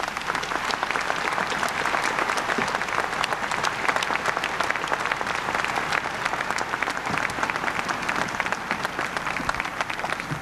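Large audience applauding: a dense, steady patter of many hands clapping that eases off near the end.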